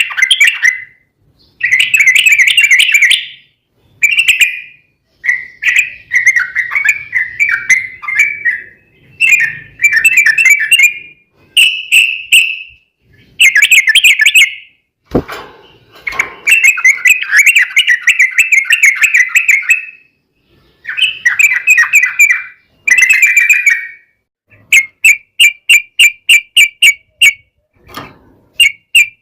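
Yellow-vented bulbuls singing in repeated loud bursts of bubbling, chattering song, with short pauses between phrases. Near the end comes a run of quick, evenly spaced notes, about five a second, and about halfway through there is a brief low thump.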